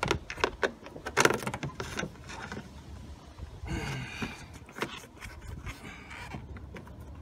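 Hands working a rubber radiator hose onto its fitting: scattered sharp clicks and knocks, with rubbing and scraping in between.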